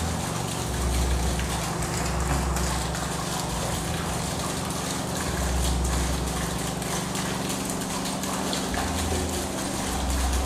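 Steady rush of running water in a recirculating fish tank, with a low, even pump hum underneath.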